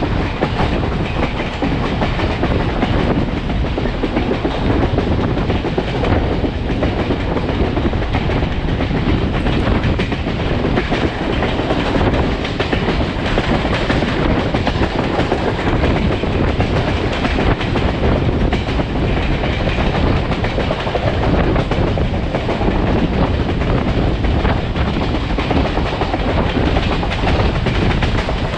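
Steel passenger coach rolling along the track at speed: a steady rumble with the wheels clicking over rail joints, mixed with wind rushing over the microphone held out the car's side.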